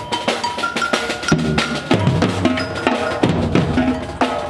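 Drum-led percussion music with cowbell, bass drum and snare: a quick, steady beat of sharp hits with a few short held notes between them.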